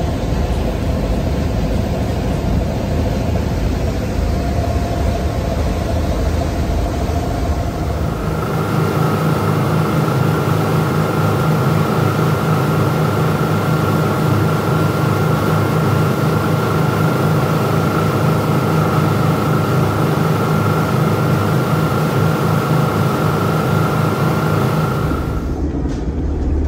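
A boat's engine running steadily with a deep hum. About eight seconds in the tone changes: the lowest rumble drops out and a steady high whine comes in.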